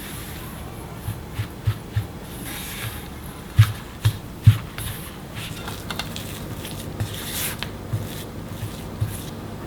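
Kitchen utensils knocking and scraping during food preparation: scattered light knocks, with three sharper ones about three and a half to four and a half seconds in.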